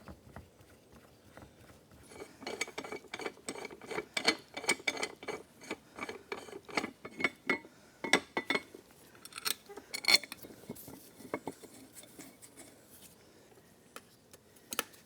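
Metal clinking and rattling as bolts and a steel case-splitter plate are handled and fitted to an engine crankcase. A fast run of light clinks lasts several seconds, followed by a few sharper ones about ten seconds in.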